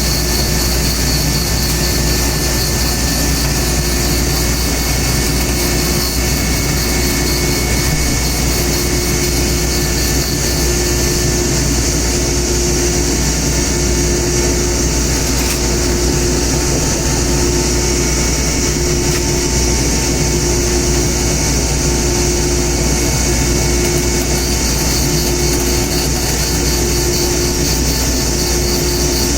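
Old woodworking machine for trimming wooden chopstick blanks to length, running steadily and loudly with a constant drone.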